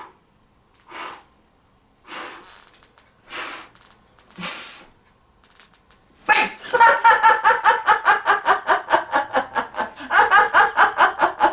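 Four breaths blown into a rubber balloon as it is inflated, each a short puff about a second apart. About six seconds in, a woman suddenly bursts into a long run of rapid, high-pitched laughter.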